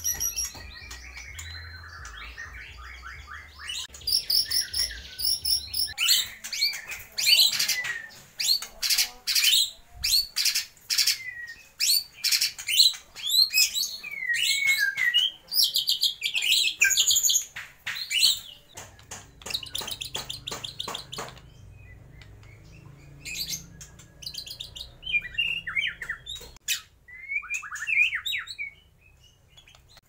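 White-rumped shama singing a loud, varied song of rapid chattering and trilling phrases in bursts, densest in the first half and sparser toward the end. Its song carries mimicked calls of other birds, such as the lovebird.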